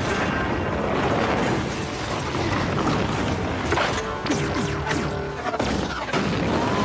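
Action-film sound mix of a giant-robot battle: music over heavy crashes, metal impacts and explosions, with a cluster of sharp hits about three to five seconds in.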